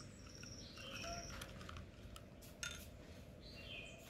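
Birds chirping in short high calls, over the light scrape and clicks of a silicone spatula stirring coffee mixture in a small glass bowl. A sharp click about two and a half seconds in is the loudest sound.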